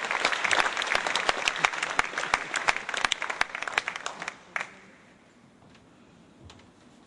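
Audience applauding: many hands clapping, dying away about four and a half seconds in.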